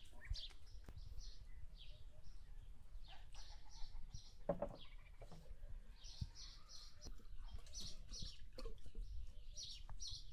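Small birds chirping, with short high chirps repeating in quick clusters throughout, over a faint low rumble.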